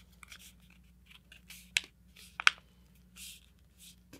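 A sheet of printer paper folded into a paper airplane being creased by hand along the wing fold. Soft rustling with a few sharp paper crackles, the two loudest a little before and just after halfway.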